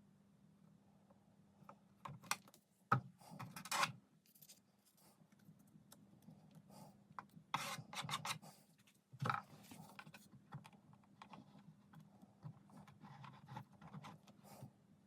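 Small model-boat kit parts being handled and fitted together on a workbench: scattered clicks, taps and short rubbing scrapes, with the sharpest knocks about three and nine seconds in, over a faint steady hum.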